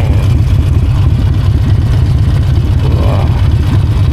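Harley-Davidson Sportster Forty-Eight's air-cooled V-twin engine running steadily on the move, its deep exhaust note heard from a mic inside the rider's helmet.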